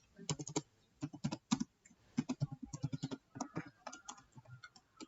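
Computer keyboard being typed on: many short key clicks in quick, irregular succession.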